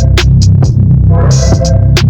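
Electronic music with a heavy synthesizer bass line and a drum beat.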